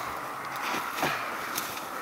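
Rustling and crackling of reeds and undergrowth as someone crouches and moves among them, over a steady insect drone.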